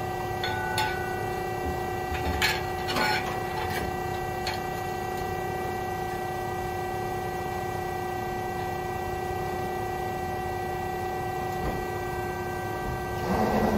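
Steady hum of an idling 110-ton press brake with no bend being made, with a few light clicks and knocks in the first few seconds and a louder rustling swell near the end.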